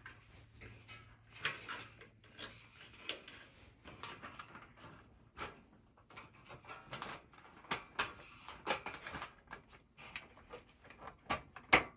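Handling of a sheet-metal fluorescent light fixture as wires are tucked back into it: irregular light clicks, taps and rustles, with one sharper knock near the end.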